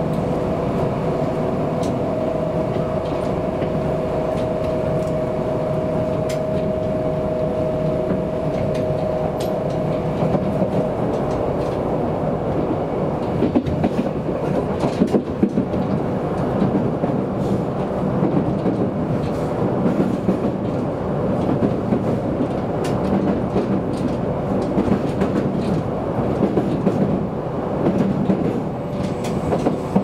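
Kintetsu electric train running, heard from inside the car: a steady rumble of wheels on the track, with a hum of a few steady tones that fades out about ten seconds in. After that the ride gets rougher, with scattered clicks and knocks from the rails.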